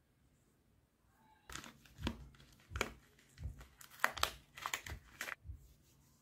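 Paper wrapper of a soap bar being torn open and peeled off by hand: a run of sharp crinkling and tearing rustles that starts about a second and a half in and stops shortly before the end.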